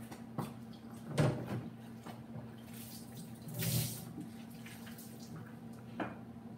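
Faint off-camera kitchen sounds: a few light knocks and a short rush of water from a tap, over a steady low hum.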